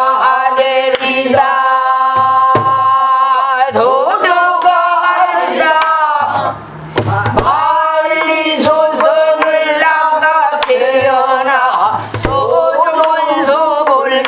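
A woman sings pansori in long, wavering, ornamented phrases. She beats the rhythm on a buk barrel drum herself, with scattered stick strikes and low drumhead thuds under the voice.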